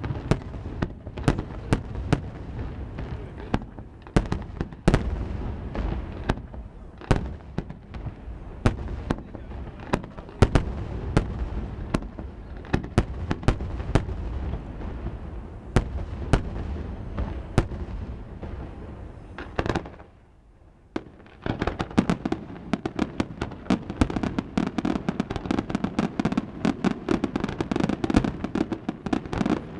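Fireworks display: a continuous run of sharp bangs from exploding shells, with a rumble between them. It breaks off for about a second two-thirds of the way through, then resumes as a much denser, rapid crackle of many reports close together.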